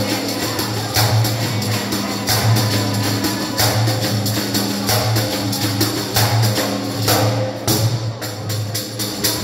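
A def, an Albanian hand-held frame drum, beaten by hand in a steady, even rhythm.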